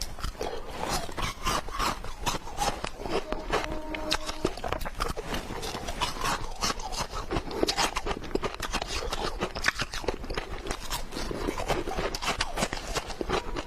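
Ice cubes being bitten and chewed: a dense, steady run of sharp crunches and cracks.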